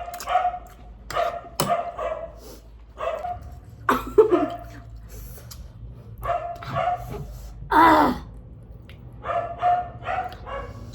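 A woman's short, repeated pained cries and huffs, roughly one a second, from the burn of extremely spicy Buldak noodles, with one louder cry near the end.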